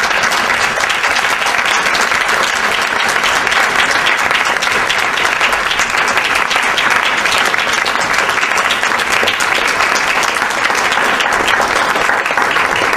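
An audience in a hall applauding: steady clapping from many hands for the whole stretch, dying away just after it ends.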